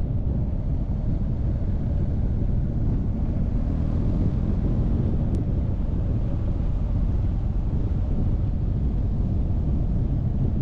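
BMW R1250GS boxer-twin motorcycle under way, its engine running steadily beneath a constant low rumble of wind on the microphone.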